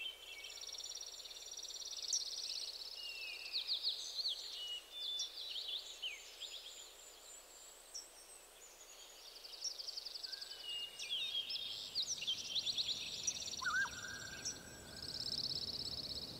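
Wild songbirds chirping, with short high gliding calls and several quick, buzzy trills of a few seconds each.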